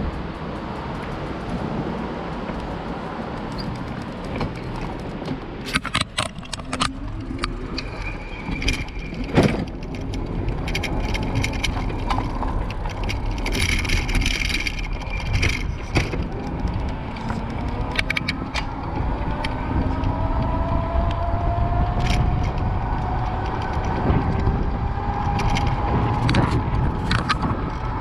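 Bicycle riding over paving stones and cobbles, the rack and frame rattling and clicking over the bumps, with wind and road noise throughout. The clattering is heaviest on the cobbled stretch about halfway through. Car traffic passes on the street alongside.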